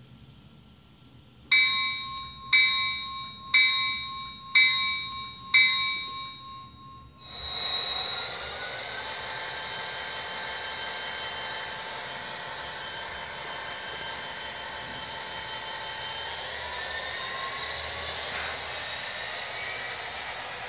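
Model locomotive sound decoder playing through its small onboard speaker: five bell-like dings about a second apart, each fading, then a locomotive engine sound starting about seven seconds in and running steadily, its pitch rising near the end.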